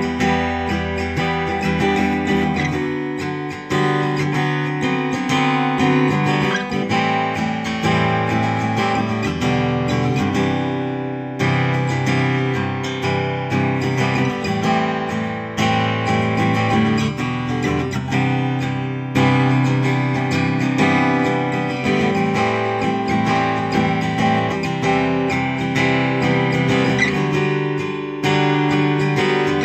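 Taylor Academy 12e acoustic-electric guitar played through a Line 6 Helix: strummed and picked chords ringing out in a steady song, with the chord changing every few seconds.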